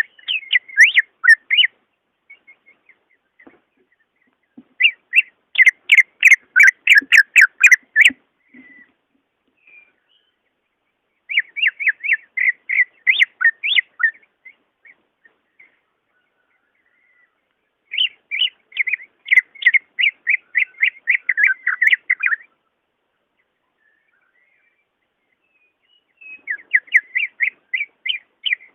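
Cucak ijo (green leafbird) song: bouts of fast, rapidly repeated chattering notes, about five a second, each bout lasting a few seconds. Between the bouts there are pauses of several seconds with a few soft single chirps.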